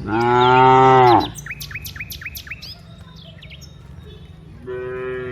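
A cow moos twice: a loud moo about a second long at the start, and a fainter one near the end. Birds chirp in quick short notes between the two moos.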